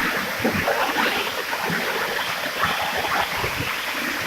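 Waterfall running: a steady rush of falling, splashing water.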